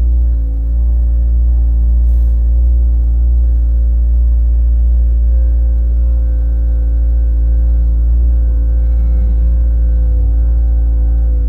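An engine running steadily at one constant speed, with a deep low rumble and a steady hum above it.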